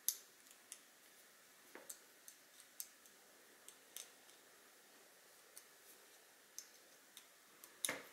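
Scattered small clicks and taps of a hex key and a rifle scope being handled at the rings of a scope mount, with a sharper knock right at the start and another just before the end.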